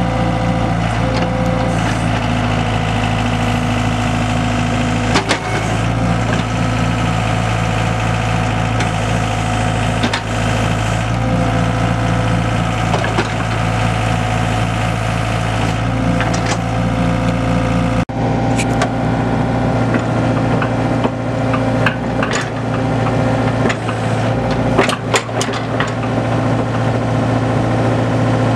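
Komatsu PC75UU-2 mini excavator's four-cylinder diesel engine running steadily while the boom, arm and bucket are worked. The sound cuts abruptly about two-thirds of the way through, and scattered clanks and knocks come after it.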